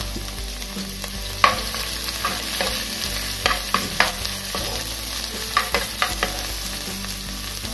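Sliced onion, carrot and green chillies sizzling in ghee in a non-stick pot while being stirred, with the spatula knocking and scraping against the pan about eight times.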